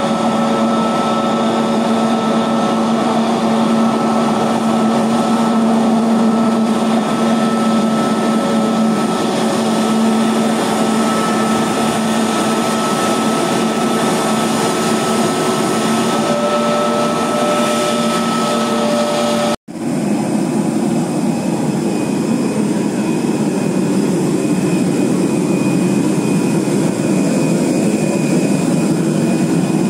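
A narrow-body airliner's twin turbofan engines running at taxi idle, a steady loud rush with whining tones. About two-thirds through the sound breaks off for an instant, then a steady rushing hum goes on without the same whine.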